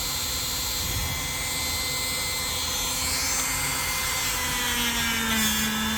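A small power tool's motor runs steadily, buffing a pocketknife blade; its pitch rises slightly about four and a half seconds in.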